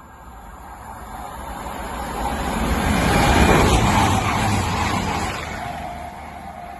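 A train passing at speed, a rushing noise with no horn that swells to a peak about three and a half seconds in and then fades away.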